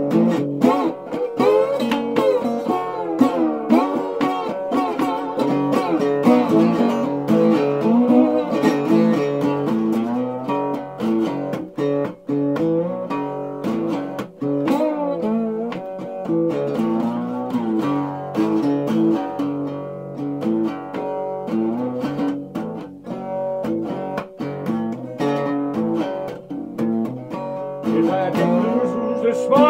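Acoustic guitar playing an instrumental blues passage, picked notes over a repeating bass line, with some notes bending or sliding in pitch.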